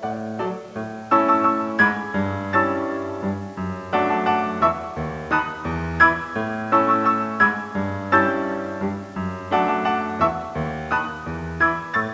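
Background piano music: a steady rhythm of struck chords and notes.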